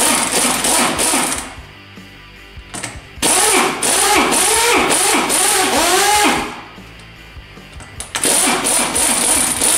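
Electric impact wrench hammering on the top nut of an old H&R coilover strut's shock absorber to undo it, in three bursts of rapid hammering: one ending about a second and a half in, one of about three seconds in the middle, and one starting near the end. Ringing tones dip and rise under the hammering.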